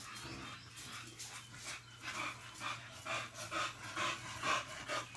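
A dog panting in a steady rhythm, about two breaths a second, over a faint steady hum.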